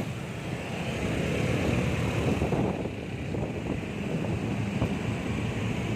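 Steady rumble of road traffic with wind buffeting the microphone.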